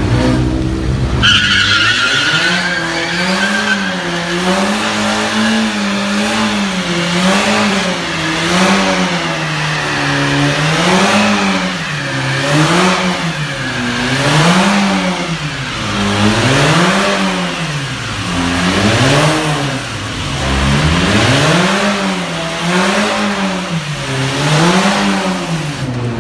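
Volkswagen Golf GTI's turbocharged four-cylinder engine doing a burnout, revved up and down over and over, a rise and fall every couple of seconds, over the hiss of spinning tyres. A high tyre squeal sounds in the first couple of seconds.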